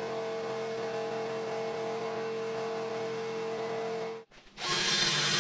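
Sandblaster blast gun running in a blast cabinet: a steady hiss of air and abrasive with a steady hum under it, cutting off about four seconds in. Near the end a louder power drill with a wire wheel starts scrubbing rusty metal.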